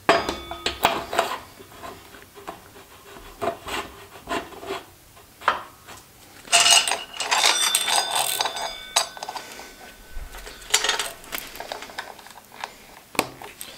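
Hand work on a mini bike's rear wheel and drive chain: metal clicks, knocks and rubbing as the tyred wheel is slid onto its axle, with a louder stretch of metallic rattling and clinking in the middle as the roller chain is handled.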